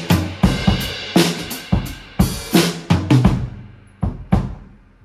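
Drum kit being played: bass drum and snare hits with crashing cymbals, in an uneven pattern. The playing stops about four and a half seconds in, and the drums start again right at the end.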